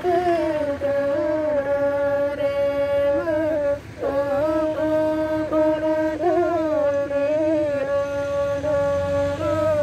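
A bowed folk fiddle playing a slow melody: long held notes joined by short slides, with a brief break about four seconds in.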